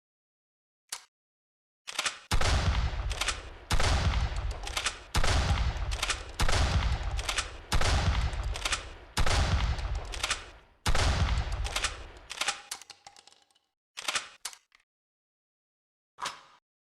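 Mossberg 590 pump-action shotgun fired seven times, about a shot every one and a half seconds, each blast with a long echoing tail and shorter mechanical clicks between shots. A few separate clicks of the action follow near the end.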